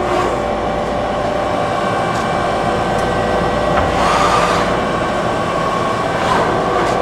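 Okuma & Howa Millac 5VA CNC machining center's table traversing on its hardened box ways, with a steady whine of several tones from the axis servo drive and ball screw over a mechanical hum.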